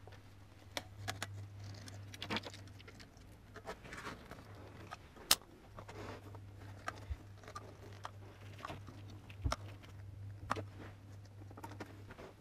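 Caulking gun being worked as silicone sealant is run along a mould's edges: scattered light clicks and knocks from the trigger and handling, at irregular spacing, over a low steady hum.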